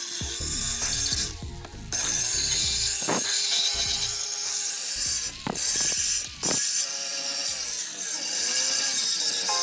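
Corded electric drill spinning a mounted grinding stone against the rusty steel of a shovel's socket and blade, grinding off rust. It stops briefly about a second and a half in, and again for moments near the middle.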